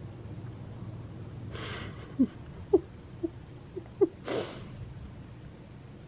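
Domestic cat making about five short, squeaky chirps in quick succession, with two breathy sniffs close by, one just before the chirps and one right after.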